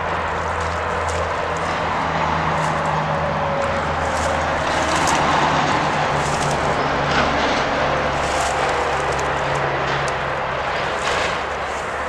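Steady low hum of distant engine noise, with slowly drifting low tones.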